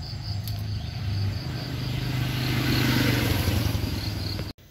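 A motor vehicle's engine passing by, with a steady low hum, growing louder to a peak about three seconds in, then easing before it cuts off abruptly near the end. Crickets pulse faintly in the first second.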